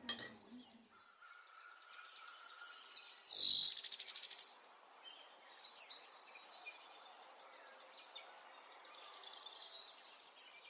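Small birds chirping and twittering, with one loud falling trill about three and a half seconds in.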